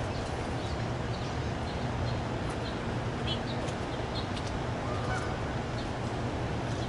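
Outdoor background noise with a steady low hum, and short, high bird calls scattered throughout. A brief lower call comes about five seconds in.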